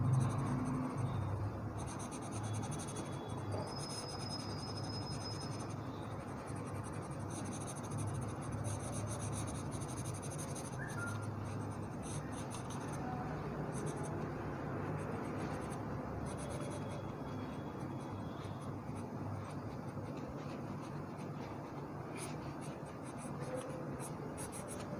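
Charcoal pencil scratching and rubbing across drawing paper in steady shading strokes.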